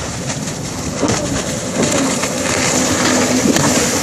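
Small watercraft engine running, with wind on the microphone and water noise.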